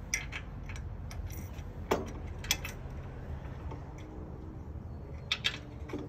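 Scattered metal clicks and clinks of bolt hardware being fitted to the mount of an electric trailer tongue jack: a few sharp taps spread out, with two close together near the end, over a low background rumble.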